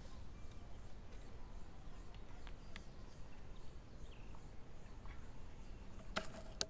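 Faint, quiet outdoor background. Near the end comes a quick cluster of sharp metallic clicks ending in one louder snap, from the PCP air rifle being handled or fired.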